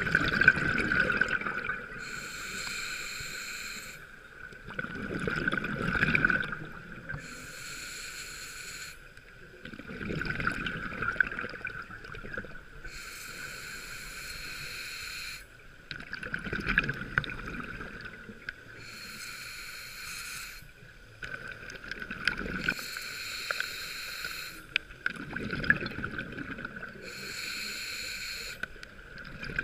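A scuba diver breathing through an open-circuit regulator, heard from the diver's own camera: a hissing inhalation through the demand valve alternates with a bubbling rush of exhaled air, about six breaths in a slow, even rhythm. A steady tone runs underneath.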